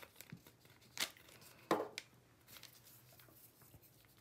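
Faint paper handling as a paper cow puppet is put together: light paper rustling and two short taps, about one second in and just before two seconds in.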